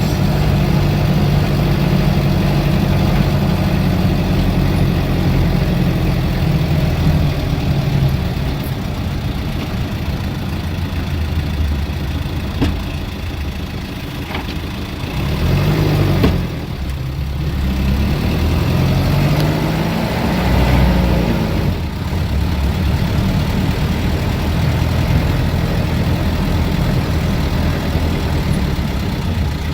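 Engine of a high-riding vehicle running steadily on the road, heard from inside the cab. About halfway through, its pitch rises and falls a few times as it revs up and eases off.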